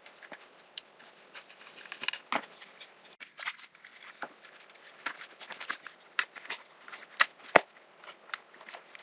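Irregular small clicks and taps of hard parts being handled, with a sharper knock about seven and a half seconds in.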